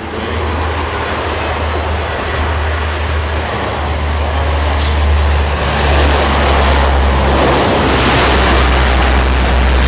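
Lockheed C-130 Hercules's four turboprop engines and propellers running loud as the plane lands and rolls out: a steady low propeller drone under a broad rush that grows louder about six seconds in.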